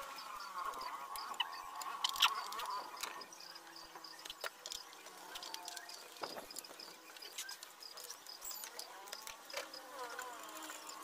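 Screwdriver taking out the screws of a mixer's metal casing: scattered light clicks and scrapes of the tool on metal. A faint high chirp repeats about three or four times a second behind it.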